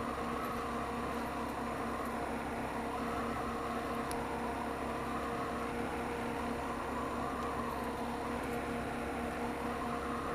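Honda Monkey 125's small single-cylinder four-stroke engine running at a steady speed, an even hum with no change in pitch.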